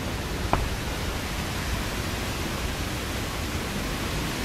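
Steady rushing noise, with one short click about half a second in.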